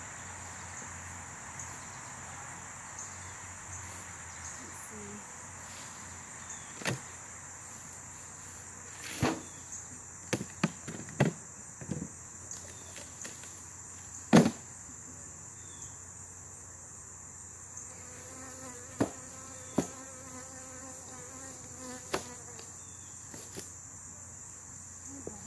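Wooden beehive boxes and bottom board knocking as the colony is split up: about ten sharp knocks, several in quick succession about ten seconds in and the loudest about halfway through. A steady high-pitched insect trill runs underneath, and a bee buzzes briefly in the last third.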